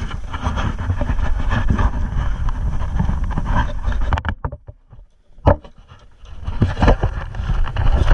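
Wind rumbling and buffeting on the action camera's microphone. It drops away briefly about four seconds in, and there is a single sharp knock about five and a half seconds in.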